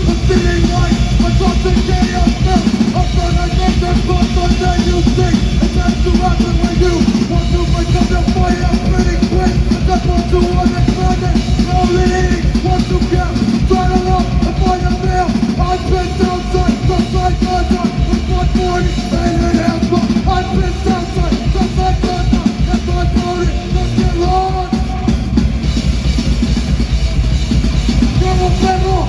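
A punk band playing live and loud: drums, distorted instruments and vocals in a dense, unbroken wall of sound.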